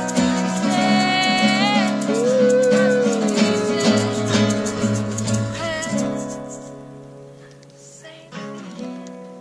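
Strummed acoustic guitar with a voice singing a held, wavering note; the music dies away about six seconds in.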